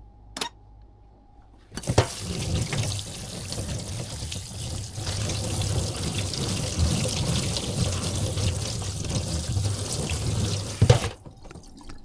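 Kitchen tap running into a sink, water splashing steadily. It starts suddenly about two seconds in and stops suddenly with a click about a second before the end.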